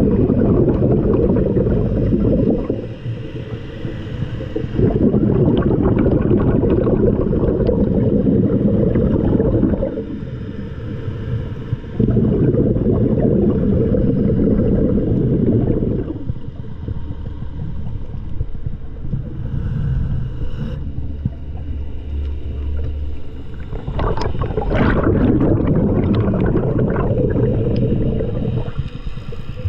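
Underwater sound of a scuba diver breathing: gurgling bursts of exhaled bubbles lasting a few seconds each, with quieter gaps between breaths.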